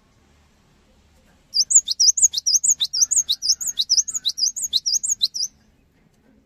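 Cinereous tit (gelatik batu) singing a fast, rhythmic run of repeated high, sharp two-note phrases, about six notes a second, starting a second and a half in and stopping about four seconds later.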